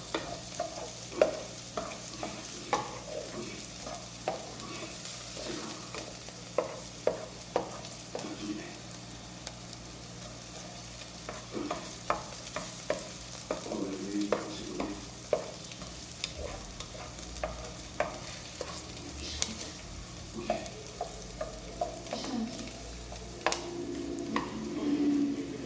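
Meat and onion sizzling as they sauté in a pot, while a spoon is stirred through them, scraping and knocking against the pot at irregular intervals.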